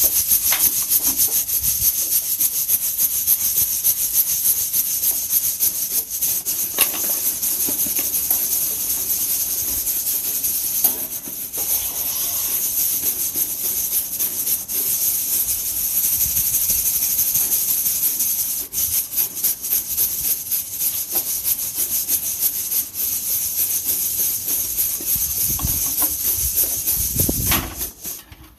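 Coffee beans being shaken in a hand roaster over a fire, a continuous dense rattle that dips briefly twice.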